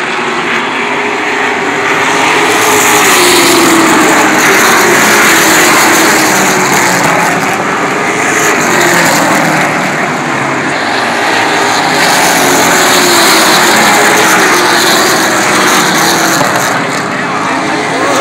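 A pack of race cars running on an asphalt short-track oval. The engines are loud, and their pitch rises and falls as the cars come through the turn and past the grandstand.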